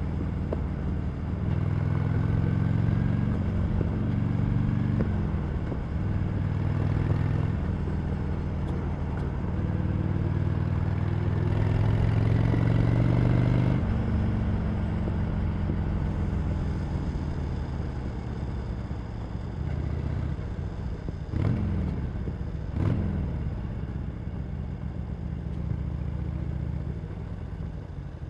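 Harley-Davidson Sportster Iron 883's air-cooled V-twin running through its stock exhaust. It climbs in pitch to about five seconds in and drops, climbs again for several seconds and drops, then runs steadier and lower, with two quick throttle blips past the twenty-second mark.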